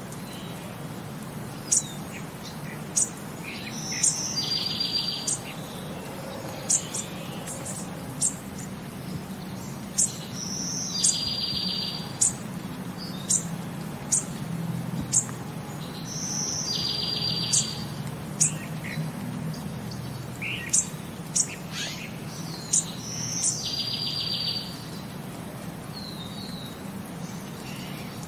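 Birds chirping in short, sharp downward calls, with a brief buzzing trill that comes back about every six seconds, as in a looped nature-sound background track.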